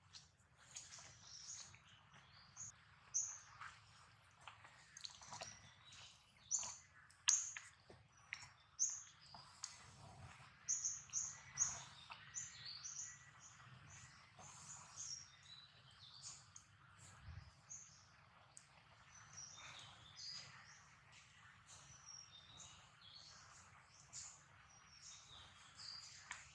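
Many short, high-pitched animal chirps, coming thick and fast from about three seconds in, then thinning out over the last half.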